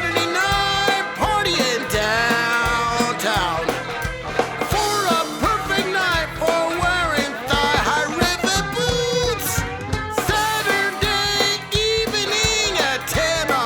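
A song playing: a sung vocal line with vibrato over a steady drum beat and bass.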